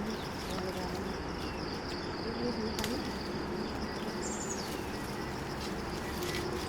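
Outdoor dawn ambience: a steady high insect drone, cricket-like, with scattered short bird chirps and a brief high falling bird whistle about four seconds in. A single sharp click just before three seconds.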